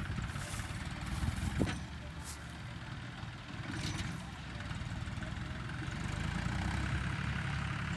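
Diesel tractor engine running steadily, with a few brief clicks about one and a half and four seconds in.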